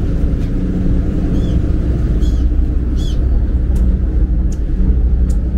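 Passenger ferry's engine running with a steady low rumble and hum. Three short high calls sound about a second and a half, two seconds and three seconds in.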